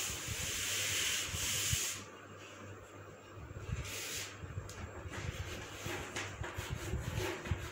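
Chalkboard duster rubbing across a chalkboard for about two seconds, wiping off the chalk, followed by faint rustling and light knocks.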